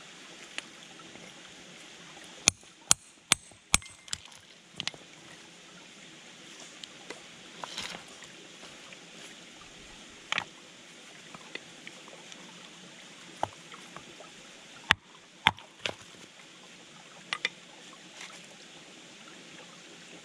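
Small hammer striking layered rock to split it, sharp knocks: a quick run of four about two and a half seconds in, then scattered single knocks and a pair around fifteen seconds. A stream runs steadily underneath.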